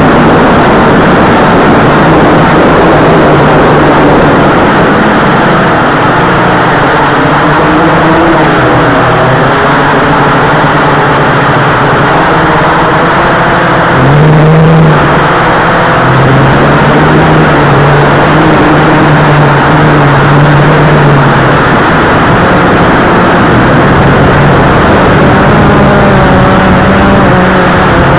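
Blade 350QX2 quadcopter's four electric motors and propellers, heard up close through its onboard camera: a loud, steady drone with several whining tones that shift up and down in pitch, briefly rising about halfway through.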